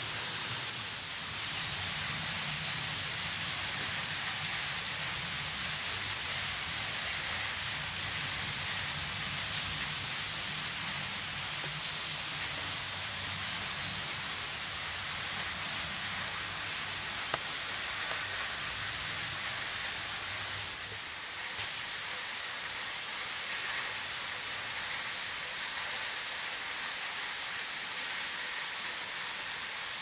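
Slender waterfall's thin veil of water falling and splashing, a steady rushing hiss, with a low rumble underneath that drops away about two-thirds of the way through.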